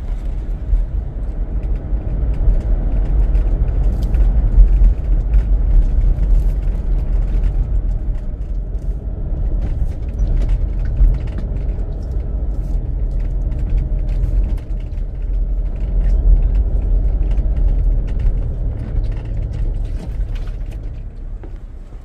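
Car driving along a road: a steady low rumble of engine and tyre noise heard from inside the car, with faint scattered ticks over it, fading away near the end.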